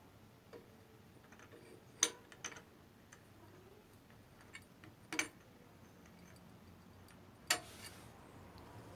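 A few sharp, separate clicks and light knocks of small hard parts being handled, over a quiet low background. The three loudest come about two, five and seven and a half seconds in.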